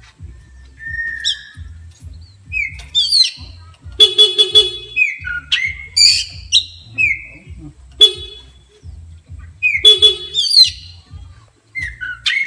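Oriental magpie-robin (kacer) singing in fired-up bursts of loud whistles and sweeping notes, set off by a horn. A buzzy horn honks three times: a longer honk about four seconds in and short ones near eight and ten seconds.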